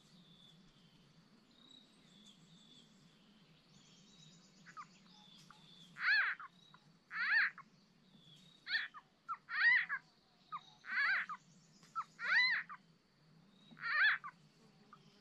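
Small frog (nhái) calling: a series of about seven short, loud croaks starting about six seconds in, roughly one every second and a half, over a faint steady background hum.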